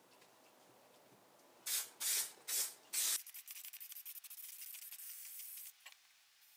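Four short hisses from an aerosol can of spray adhesive. These are followed by a gloved hand rubbing and pressing a carpet piece down onto the cab floor, a fast scratchy rustle lasting a couple of seconds.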